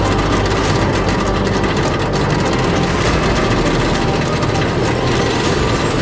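Amusement ride running: a loud, steady rumble and rattle, with a faint high whine rising near the end.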